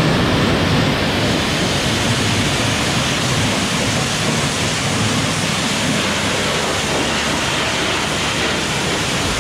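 High-pressure car-wash jet spraying water onto a dirt bike: a loud, steady hiss of spray.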